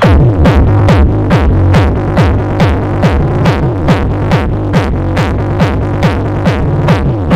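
Loud electronic dance music with a fast, steady kick-drum beat, about two and a half beats a second, each kick dropping in pitch, over heavy bass. It plays through a mobile sound system's speaker boxes driven by DIY Class G power amplifiers during a sound check, and cuts in louder right at the start.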